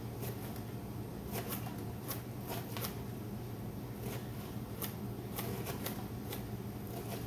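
Chef's knives dicing carrots and an onion on cutting boards: irregular sharp knocks of the blades on the boards, a few a second, over a steady low hum.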